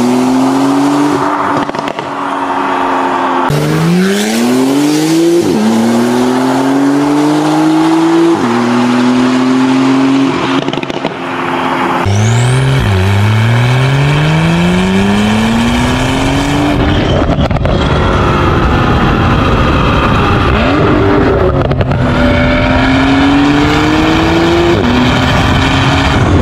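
Porsche 991.2 Carrera 4S twin-turbo flat-six with a Fi valvetronic exhaust and catless downpipes, accelerating hard: the exhaust note climbs in pitch and drops back at each of several upshifts. A steadier stretch of road and engine noise comes in the middle.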